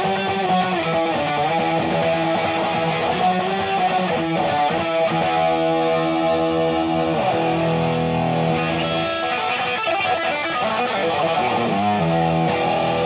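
Electric guitar played through an AMT Electronics California Sound distortion pedal, a combo-amp emulator: chords and notes left to ring on, with a run of quick picked attacks in the first few seconds.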